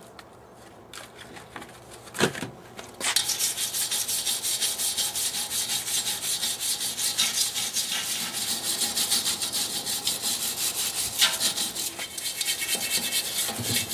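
Wire brush scrubbing rust off a bare steel water-heater tank, with rapid, uneven scraping strokes starting about three seconds in after a couple of knocks.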